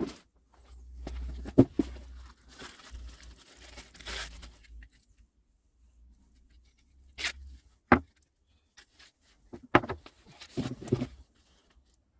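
Intermittent handling noises: a few sharp knocks and short stretches of scraping noise, with no power tool running.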